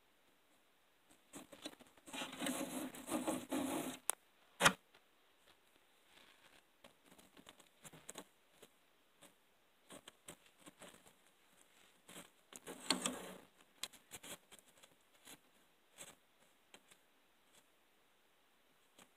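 Scratching and rubbing noises against a very quiet background: one burst about two seconds in, a sharp click just after it, and a second burst past the middle, with scattered small ticks between. This is handling noise from the recording phone held against the enclosure's mesh screen lid.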